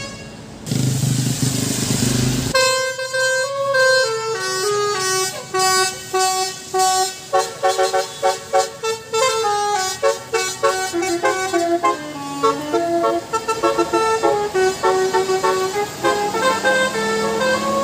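Bus 'telolet basuri' melody horn playing a tune of short, stepping notes, starting about two and a half seconds in after a brief loud rush of noise.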